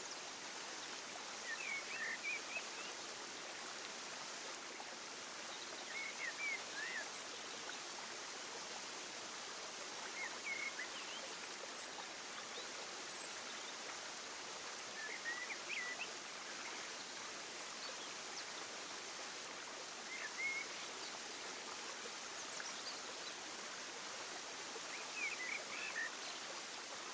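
Steady rush of flowing water with short bird chirps that come back every four to five seconds.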